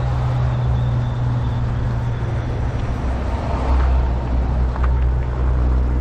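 Road traffic: a motor vehicle's steady low engine hum that drops in pitch about halfway through, over general street noise.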